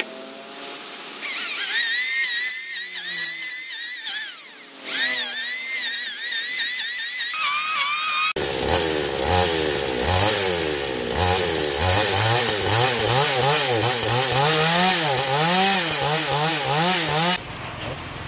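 Power tool cutting into a block of rosewood, its motor pitch rising and falling as it bogs under load and frees up again. The sound changes abruptly about eight seconds in to a deeper, wavering motor note, and drops to a much quieter sound near the end.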